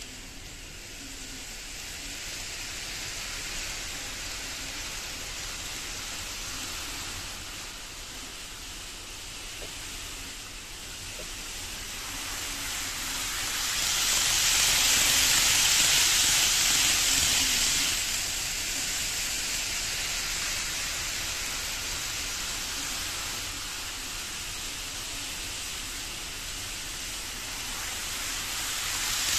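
KATO N-gauge 500 series Shinkansen model train running on its track: a steady hissing rumble of the wheels rolling on the rails. It swells to its loudest for about four seconds in the middle as the train passes close by, and rises again near the end as it comes round once more.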